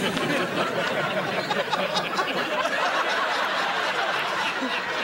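Studio audience laughing steadily, a dense crowd laugh.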